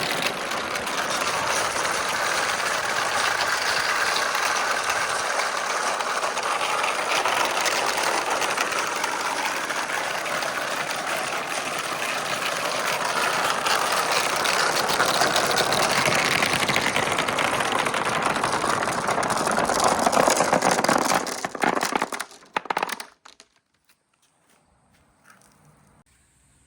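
Glass marbles rolling and clattering down marble-run slopes, a dense continuous rattle that dies away about 22 seconds in, leaving a few last clicks.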